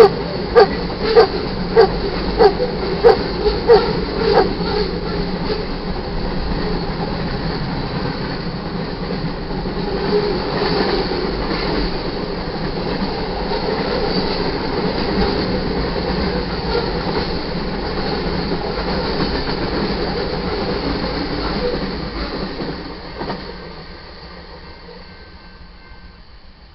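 Freight train cars rolling past steadily with rail and wheel noise. A dog barks about seven times in quick succession in the first four seconds or so. The train noise fades away from about 23 seconds in as the end of the train passes.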